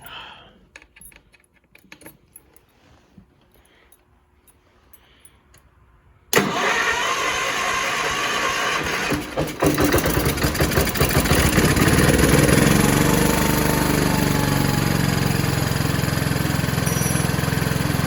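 A few faint clicks, then about six seconds in the Kohler engine of an Allis-Chalmers garden tractor cranks on its starter for a few seconds, catches and runs steadily. This is its first start after a head gasket replacement.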